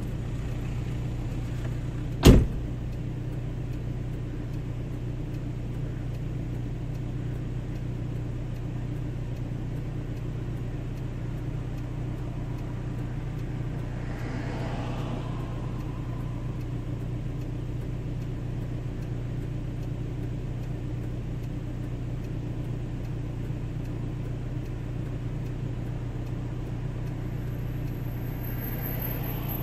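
Car engine idling steadily, heard from inside the parked car, with a car door slammed shut about two seconds in.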